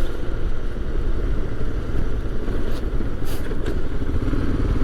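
Royal Enfield Himalayan motorcycle running steadily under way, its engine rumble mixed with wind rush on the microphone. A few short clicks come about halfway through.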